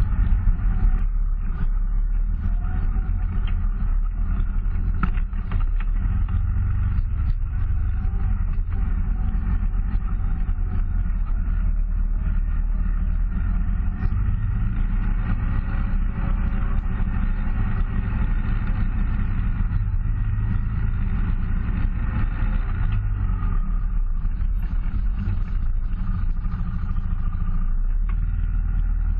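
ATV engine running steadily at low trail speed, a deep even rumble, with a few light knocks from the rocky ground in the first several seconds.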